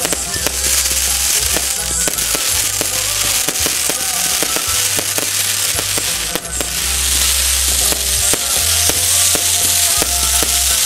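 Fireworks crackling and hissing densely overhead, a steady spray of small pops, over a band playing a waltz with bass notes. The crackle thins out briefly about six seconds in.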